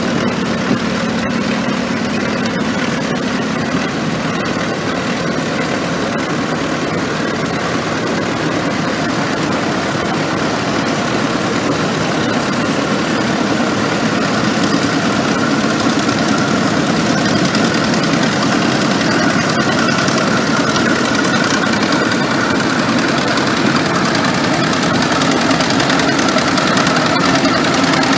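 A row of vintage crawler tractor engines, an International Harvester TD-6 and Caterpillar crawlers among them, idling together in a steady, dense drone that grows a little louder in the second half.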